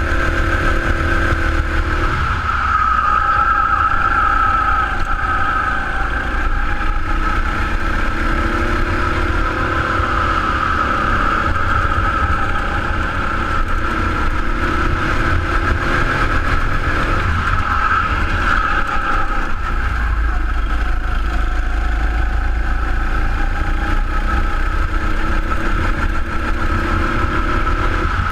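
Sodi RX7 rental go-kart engine running at full throttle, its pitch rising and falling as the kart accelerates out of corners and slows into them.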